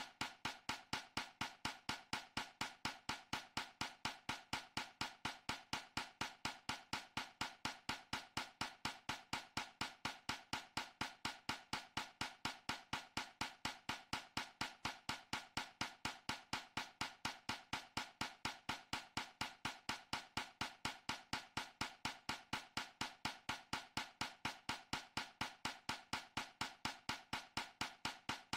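A backing track's fast, steady beat of short, sharp percussive clicks, about four a second, repeating without a break.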